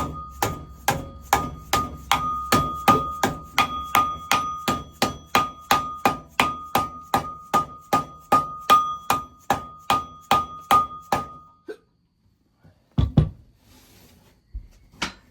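Steady hammer blows, about three a second, on a VW Beetle engine's flywheel, driving it onto its dowel pins. Each strike rings with a metallic tone. The hammering stops about three quarters of the way through, and two single thumps follow.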